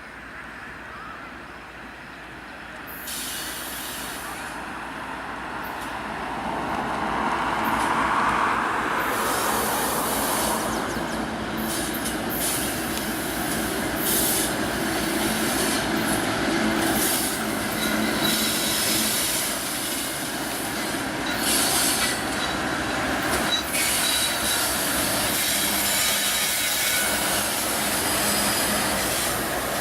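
Canadian Pacific freight train rolling past, its cars and wheels rumbling and clattering on the rails, with some high wheel squeal. It grows louder over the first several seconds, then stays steady.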